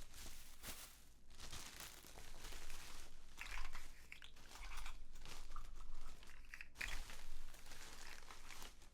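Crinkling and rustling of packaging being unpacked by hand, in irregular handling bursts with short pauses.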